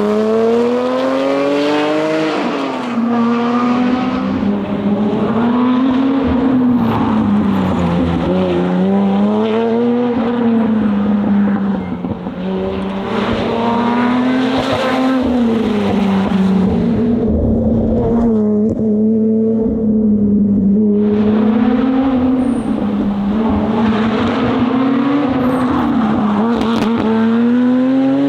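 Lotus Exige Sport 350's supercharged V6 under hard driving: the engine note climbs and drops over and over, every few seconds, as the car accelerates, changes gear and slows for one corner after another. It eases off for a few seconds about two-thirds of the way through.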